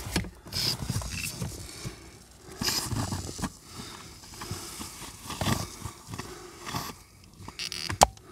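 Aerosol A/C foam cleaner hissing in short bursts through an applicator tube, mixed with rustling and scraping handling noises, and a sharp click near the end.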